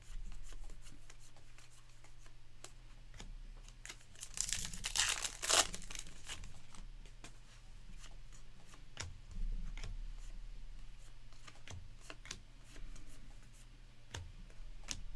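Trading cards being handled, with small clicks and taps throughout and a brief loud tearing, crinkling of packaging about four and a half seconds in.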